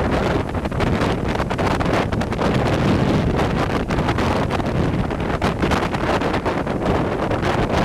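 Hurricane-force wind buffeting the microphone: a loud, continuous rush that swells and dips with the gusts.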